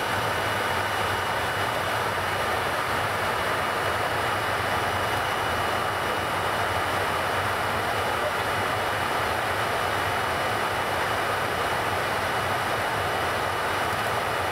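Steady rushing noise on the flight deck of a Boeing 707 in flight, from its four Pratt & Whitney JT3D-7D turbofans and the airflow. A low hum and a thin, steady high whine run through it.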